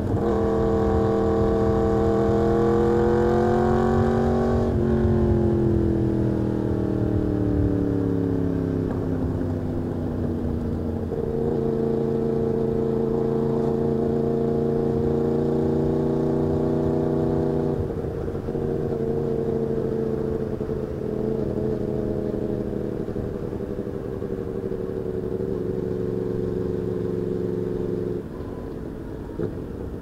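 Yamaha MT-10's crossplane inline-four engine running under way, heard from the rider's seat. Its pitch dips and rises over the first few seconds, then falls away steadily as the throttle is rolled off, holds steady at cruise, drops a step about eighteen seconds in, and drops again and quietens near the end.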